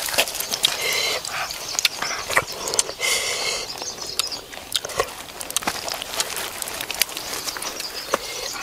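Close handling of a raw chicken on a bed of leaves: crackly leaf rustling and sticky, wet clicks from fingers working the skin and stuffing, with two short squeaky sounds about one and three seconds in.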